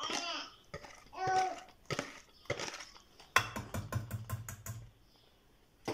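Wire whisk scraping thick cake batter out of a bowl into an aluminium baking pan, with a quick run of light clicks, about six a second, for a second and a half in the middle, as the whisk knocks against the bowl and pan.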